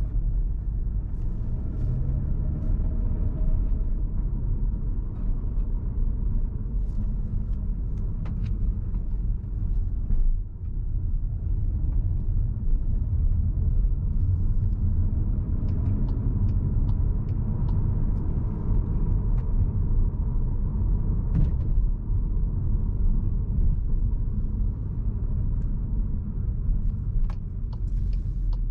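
Cupra Formentor VZ5's turbocharged 2.5-litre five-cylinder engine and road rumble while driving, with the engine pitch rising briefly near the start and a short dip in level about ten seconds in.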